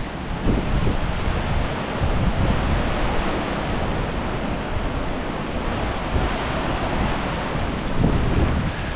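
Heavy hurricane rain pouring and wind gusting, a steady hiss with wind rumbling on the microphone and swelling slightly near the end.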